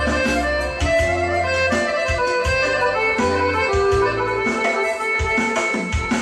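Instrumental passage of a Serbian folk-pop song: a held, ornamented melody line over a steady repeating bass.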